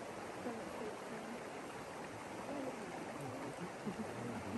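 Steady sound of water flowing through a hot spring pool, with faint voices talking underneath.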